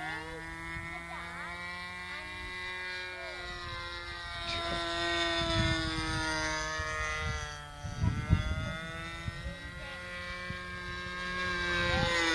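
Radio-controlled model airplane's engine droning as it flies low, its pitch sliding up and down as the plane comes and goes. A few gusts of wind knock on the microphone about eight seconds in.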